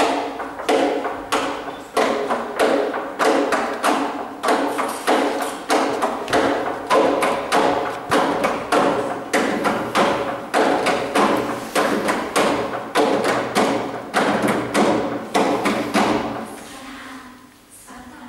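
Folk ensemble of fiddles and bass playing a tune over a strong, regular percussive beat, about one and a half heavy thuds a second with lighter taps between. The playing dies away near the end.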